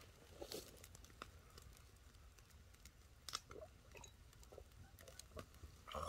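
Near silence with faint chewing and a few scattered soft clicks, about six over several seconds, above a low steady hum.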